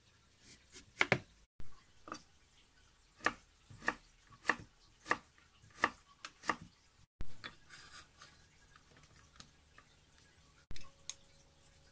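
Kitchen knife slicing through a raw daikon radish onto a wooden cutting board, crisp strokes at about one every half second. Later, softer handling sounds on the board and a single knock near the end.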